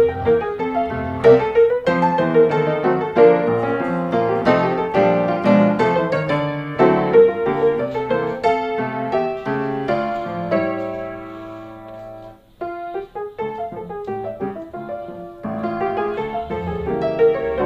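Background piano music, a run of struck notes that thins out and softens about ten seconds in, almost stops around twelve seconds, then picks up again.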